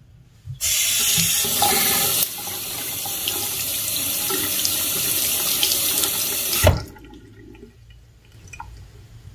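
Bathroom sink faucet turned on, water running into the basin and splashing over a hand, then shut off abruptly with a knock nearly seven seconds in.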